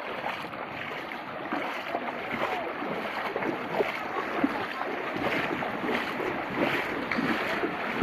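Floodwater rushing, a steady dense wash of water noise.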